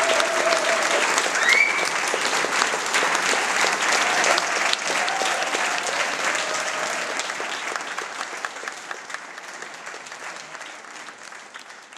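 Audience applauding, a dense patter of clapping that fades out gradually over the second half.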